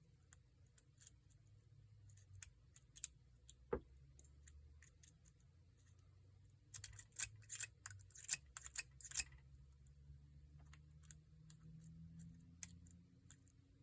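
Faint metallic clicking of a hook pick and tensioner working the pins inside a Paclock 90A-PRO padlock, scattered single clicks with a quick run of clicks in the middle, over a low hum.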